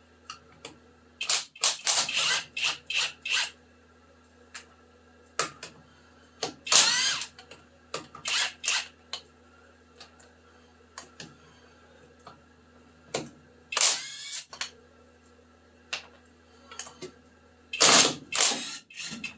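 Garage tool work: runs of sharp metallic clicks and knocks, with two short whirring bursts that rise in pitch, about a third of the way in and again about two-thirds in.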